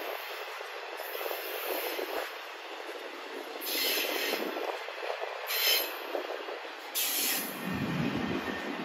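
Intermodal freight train's trailer-laden flatcars rolling past: a steady rumble and rush of steel wheels on rail, with three brief high-pitched wheel screeches about a second and a half apart in the second half, and a deeper rumble near the end.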